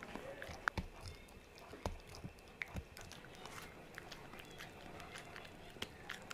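Small dog, a Shih Tzu–Pomeranian mix, gnawing a dental chew stick: faint, irregular clicks and crunches of teeth on the chew.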